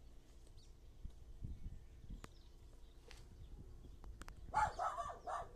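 A dog barking five or so times in quick succession near the end, over faint low rumbling and a few soft knocks.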